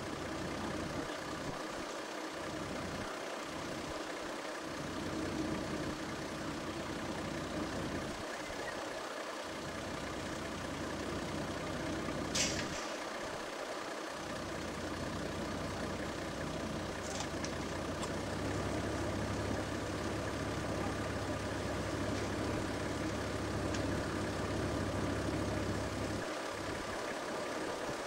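A vehicle engine idling steadily, its low hum growing stronger for several seconds past the middle, with one sharp click about twelve seconds in.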